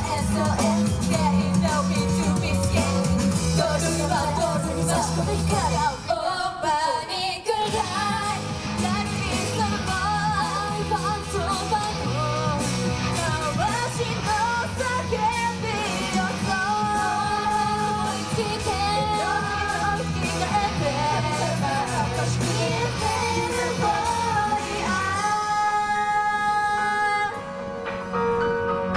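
Upbeat pop song with women singing over a backing track, played loud through a club PA. The bass drops out briefly about six seconds in and again near the end, where held notes ring before the beat returns.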